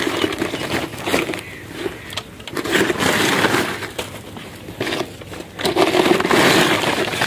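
Woven and paper cement sacks rustling and crinkling as they are pulled off an electric water pump motor, in irregular bursts that grow louder about three seconds in and again near the end.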